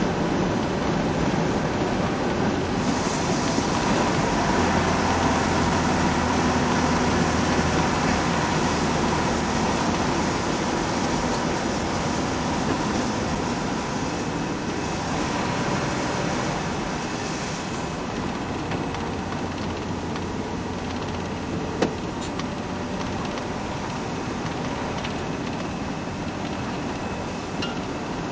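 Steady road noise inside a moving vehicle's cab on a wet highway: a low engine drone under a constant hiss of tyres on wet pavement, with a single sharp click about 22 seconds in.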